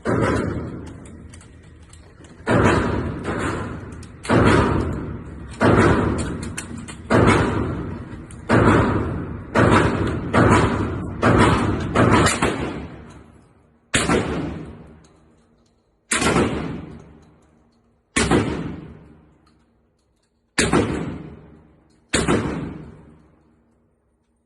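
A string of 12-gauge shotgun shots, about sixteen in all, each a sharp blast with a long echoing tail. They come about a second apart at first, then slow to one every two seconds or so.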